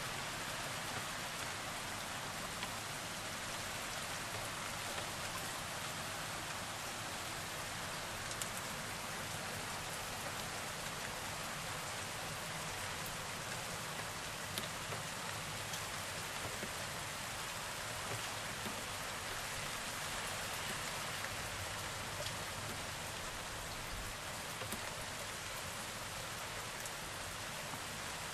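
Steady heavy typhoon rain falling, with a few sharper drop hits scattered through it.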